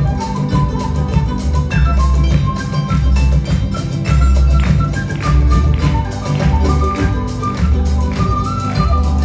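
Live ensemble playing upbeat Peruvian music: a steady beat of hand percussion with a jingling tambourine, over a deep bass and a high melody line.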